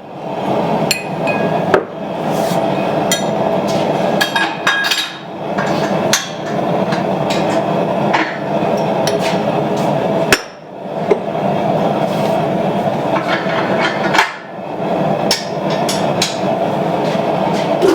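A forge running steadily and loudly, with repeated sharp metallic clinks and knocks of steel tools and dies being handled.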